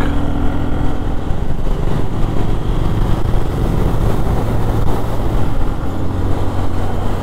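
Single-cylinder engine of a Bajaj Pulsar 135 LS motorcycle running at a steady cruising speed of about 60 km/h, with wind rushing over the microphone.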